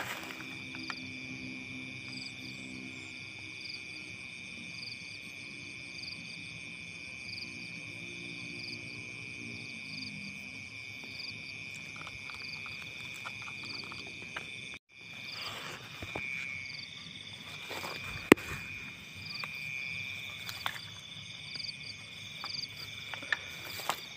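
Night chorus of insects and frogs in a wet, harvested rice field: a steady high insect trill with a faster pulsing chirp above it, and a low frog chorus through the first half. After a brief break in the sound, scattered clicks and knocks join the chorus, one sharp knock standing out.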